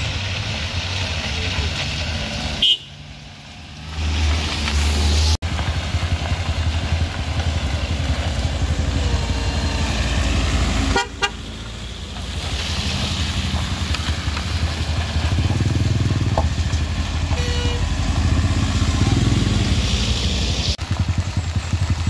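Vehicle engines, trucks among them, working up a steep climb: a steady low rumble, with short horn toots now and then. The sound drops out or dips abruptly a few times.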